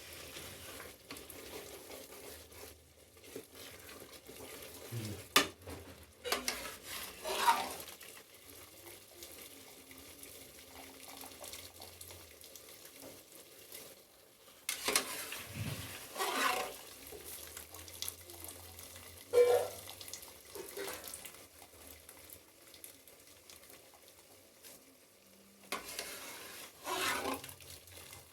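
Food frying in a pan with a faint steady sizzle while it is stirred with a spoon. The spoon scrapes and knocks against the pan in several short, louder strokes.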